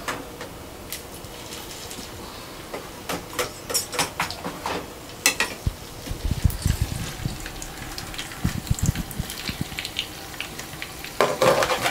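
Kitchen work at a sink: water being handled in a plastic bowl, with scattered clinks and knocks of the bowl and utensils. A few dull low knocks come about halfway through.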